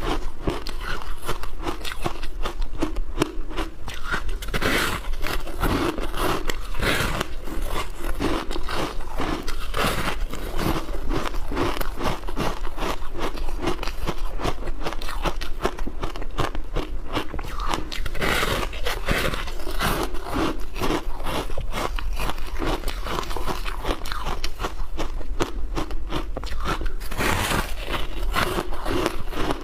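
Close-up crunching and chewing of matcha shaved ice, many irregular crisp crunches one after another.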